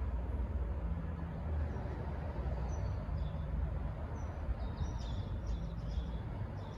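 Low steady rumble of a V/Line N class diesel-electric locomotive's engine, with a series of short bird chirps from about three seconds in.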